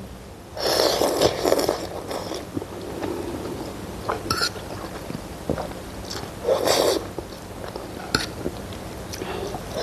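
A person slurping noodles of pork thukpa soup and chewing, with a long slurp about a second in and shorter slurps around four and seven seconds.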